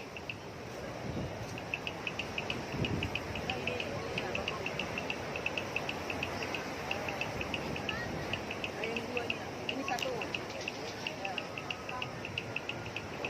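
Insect chirping in a rapid, even pulse train, about four short high chirps a second with a few brief pauses, over a steady background din.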